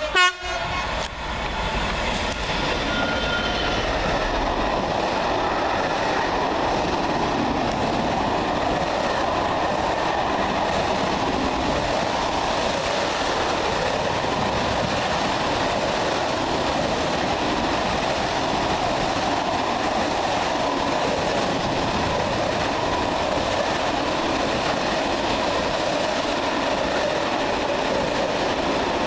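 A short train horn note ending right at the start, then a Class 66 diesel-hauled freight train passing close by: the locomotive followed by a long rake of covered wagons, their wheels giving a loud, steady rolling noise on the rails.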